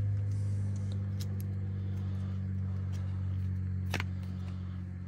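Steady low hum, slowly growing fainter, with a few light clicks and a sharper tick about four seconds in as the loose motor and gear housing of the disassembled impact driver are handled.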